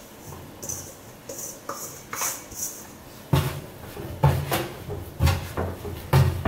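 Challah dough being turned out of a bowl and kneaded by hand on a floured wooden board: a few light scrapes at first, then from about halfway in, dull thumps roughly twice a second as the dough is pushed and folded onto the board.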